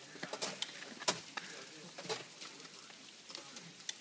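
Ice climber's axe and crampons striking the ice: a string of irregular sharp clicks and knocks, the loudest about a second in.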